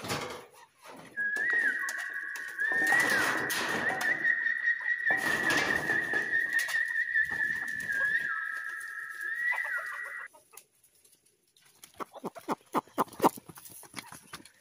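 A steady, high whistle-like tone is held for about nine seconds with a few short upward swoops, among a flock of chickens moving about. After it stops there is a quick run of sharp clicks, typical of chickens pecking on a feed sack.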